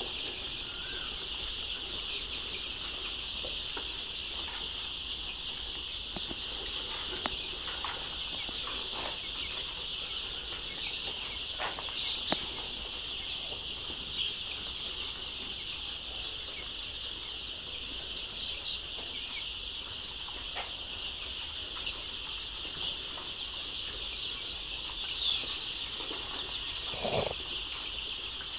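Dense, unbroken chorus of peeping from a large flock of young layer chicks, with a few scattered knocks and a louder thump near the end.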